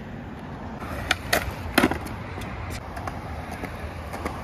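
Skateboard wheels rolling on a concrete sidewalk, a steady rumble, with three sharp clacks between about one and two seconds in, the last the loudest, as the skater approaches a ledge.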